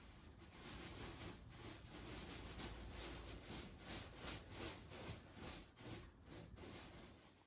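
Faint rubbing or scraping noise, swelling and fading in irregular strokes, then cutting off suddenly at the very end.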